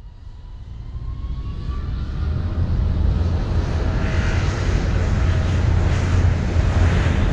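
Roadside crowd clapping and cheering as a time-trial rider and the following team car go by, over a steady low rumble of vehicle engines that grows louder over the first few seconds.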